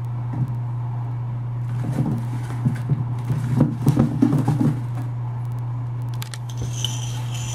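Light clicks, scratches and knocks of a chinchilla scrabbling inside a plastic hideout and shifting it on a tile floor, busiest in the middle, over a steady low hum.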